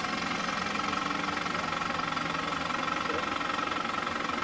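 Massey Ferguson 35 tractor engine running steadily at a constant speed.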